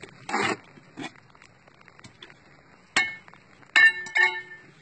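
Bricklaying with hollow fired-clay bricks. A short scrape of mortar early on, then a sharp ringing clink about three seconds in and a quick run of ringing clinks just after, as steel trowel and bricks knock while a brick is set in place.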